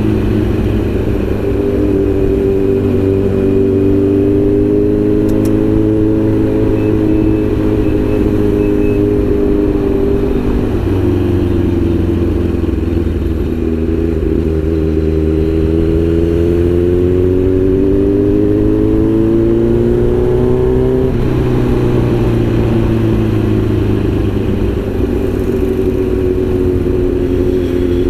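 Kawasaki Z900's inline-four engine running under way. Its pitch holds steady, falls about ten seconds in, then climbs slowly for several seconds before dropping sharply near twenty-one seconds, as at a gear change.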